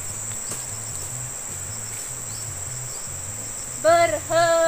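Insects droning steadily at a high pitch. Near the end a girl's voice calls out a drawn-out marching-drill command, holding one long note.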